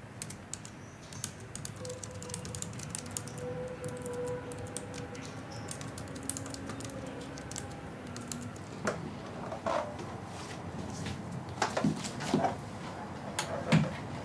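Typing on a laptop keyboard: quick, irregular key clicks. From about nine seconds in, a few louder knocks sound among the clicks.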